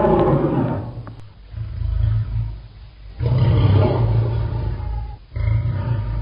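Deep, rumbling animal roars in about four low, pulsing bouts of around a second each.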